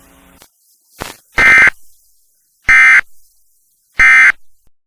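Emergency Alert System end-of-message signal: three short, loud bursts of buzzy SAME digital data tones, about 1.3 seconds apart, marking the end of the alert.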